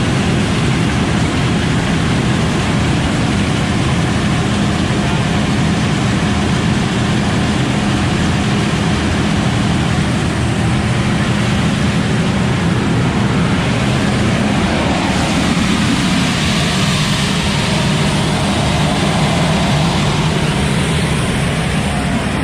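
John Deere combine running steadily, a loud engine hum under a broad rushing of air. The rushing sound shifts a little about fifteen seconds in.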